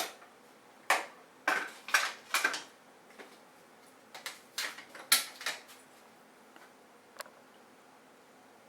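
A series of short, sharp clatters and knocks of hard objects being handled, about ten in all, most of them in the first six seconds and one more near the end.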